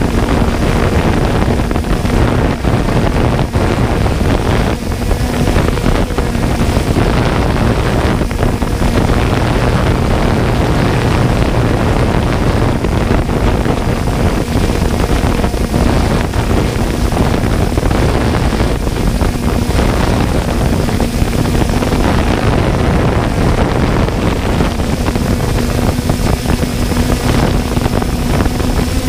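3DR Solo quadcopter's motors and propellers running steadily, heard through the onboard camera's microphone as a constant hum under heavy wind noise.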